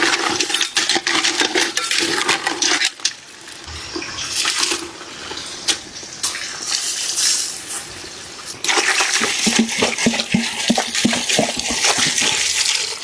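Water rushing and splashing in surges, with many small clicks and crackles; it loudens for about the first three seconds and again from about nine seconds in, and is quieter in between.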